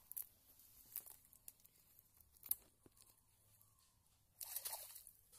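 Faint rustling and crackling of a wet cast net being picked through by hand on a stone slab, with a few sharp clicks and a longer rustle near the end.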